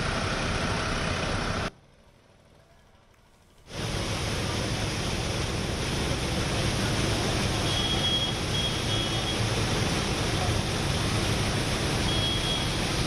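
Steady, loud rushing noise that drops out to near silence for about two seconds near the start, then comes back. A few faint, short high beeps sound about eight seconds in and again near the end.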